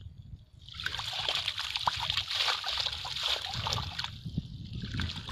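Water splashing and sloshing as a fine-mesh fishing net is dunked and worked about in shallow water, starting about a second in and running on as a busy patter of small splashes.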